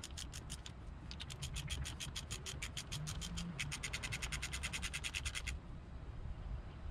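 Socket ratchet clicking as it loosens a 13 mm nut on the outboard starter's wire terminal. A slower series of clicks comes first, then a fast run of clicks that stops about five and a half seconds in.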